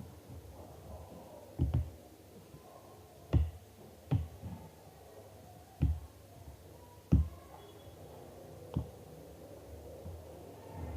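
A series of about seven dull knocks and taps at uneven intervals, like containers or utensils being handled and set down on a table.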